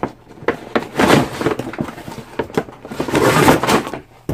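Packaging being handled during an unboxing: rustling and scraping with a few sharp clicks and knocks, loudest about a second in and again after three seconds.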